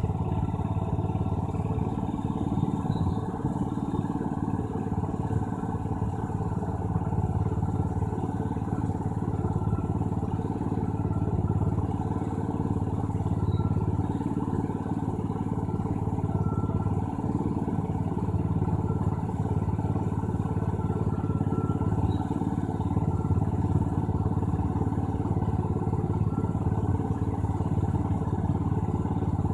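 Steady low mechanical hum that runs on without a break or change in level.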